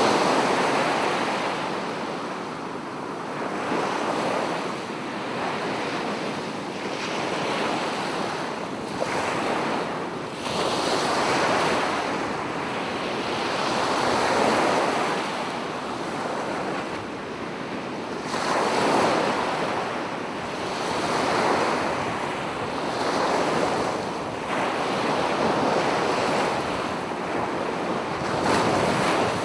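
Ocean waves washing onto a shore, the surf swelling and falling away every few seconds.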